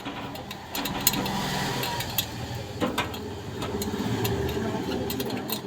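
Air conditioner unit running: a steady motor hum sets in about a second in, with scattered clicks over it.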